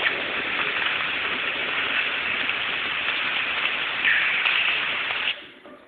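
Steady hiss of a compressed-air blow gun aimed at a car body panel, cutting off suddenly near the end.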